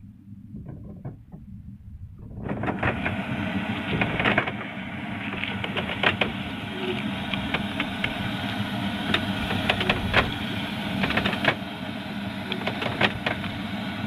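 Fishing boat's engine running with a steady hum, under a rush of wind and water noise that comes in suddenly about two and a half seconds in. Frequent short knocks and slaps run through it.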